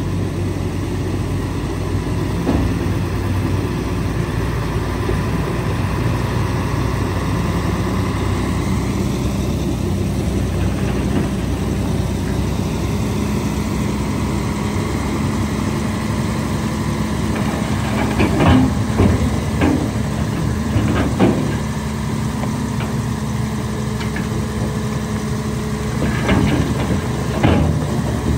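Tipper truck's diesel engine running steadily while the dump bed is raised, with a steady hum joining in about halfway. The load of dirt and stones slides out of the bed with a run of sharp knocks and thuds about two-thirds of the way through, and again near the end.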